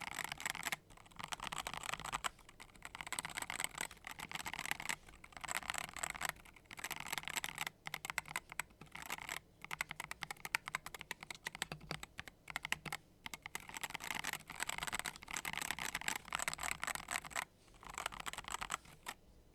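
Typing on a mechanical keyboard fitted with factory-lubricated Gateron magnetic (Hall-effect) switches: fast runs of key clicks in bursts of a second or two, with short pauses between them.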